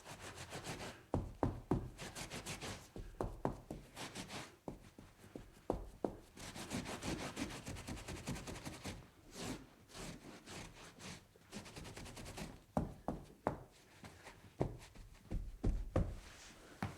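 Wiping and scrubbing spills off a tabletop: uneven rubbing strokes, with light knocks against the table every second or so.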